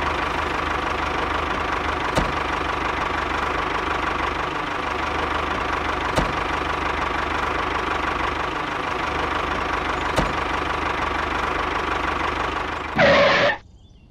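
Steady engine running sound of a miniature model tractor engine, even and unchanging, with faint clicks about every four seconds. A brief loud burst comes near the end, and then the engine sound cuts off.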